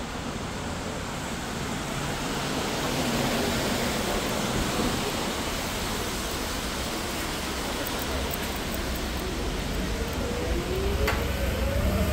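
Steady hiss of traffic on a wet road, growing slowly louder, with a rising whine from a passing vehicle near the end.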